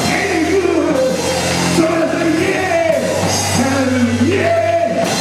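A man singing gospel into a microphone over the church PA, holding long notes and sliding between pitches, over steady instrumental accompaniment.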